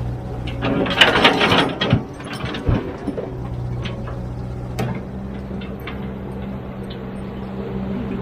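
Heavy machine's diesel engine running steadily, with a loud burst of clattering and knocking about a second in, then scattered sharp clicks and knocks.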